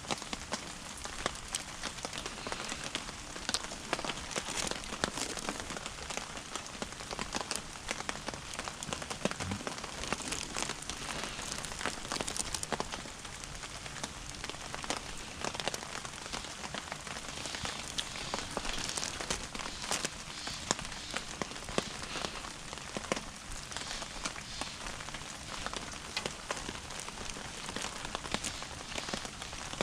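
Wood fire burning low in a small Honma RS-41 cooking stove: a steady hiss, thick with rapid crackling ticks and an occasional louder pop.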